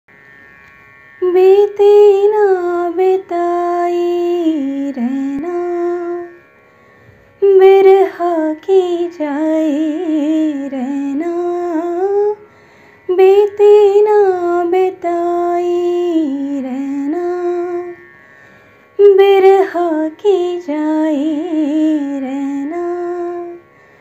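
A woman singing solo, unaccompanied, in four long phrases of about five seconds each with brief pauses between them; each phrase holds a wavering note and dips down toward its end.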